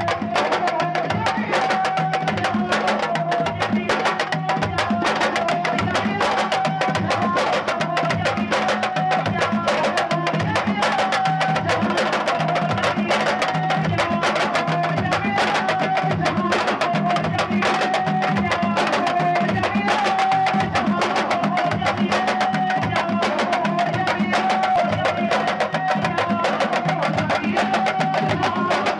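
Sabar drum ensemble playing a fast, dense rhythm of sharp stick-and-hand strokes, with no break.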